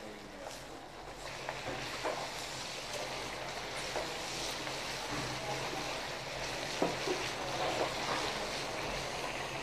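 Chicken pieces frying in butter in a copper sauté pan, a steady sizzle as they brown, with a few short clinks of a meat fork against the pan as the pieces are turned.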